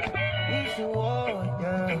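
Background music: a song with a repeating bass line and a melody that slides between notes.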